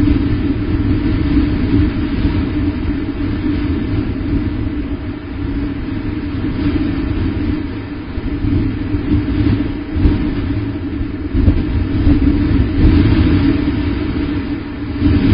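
Steady low rumble of wind buffeting an outdoor microphone, swelling and easing in gusts.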